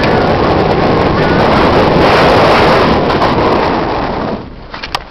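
Wind rushing over a helmet camera's microphone, mixed with tyre noise, as a mountain bike descends a dirt trail at speed. The rush falls away suddenly about four seconds in, leaving a few sharp clicks and rattles.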